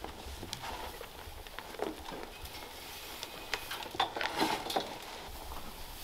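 Dry hay rustling and crackling as it is stuffed into a goat hay feeder, with scattered sharp clicks and knocks that are busiest about four seconds in.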